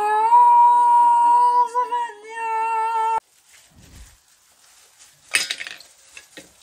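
A child's voice holding one long note into the mouth of a large plastic soda bottle for about three seconds, wavering briefly partway through, then cutting off. A short clatter comes about five seconds in.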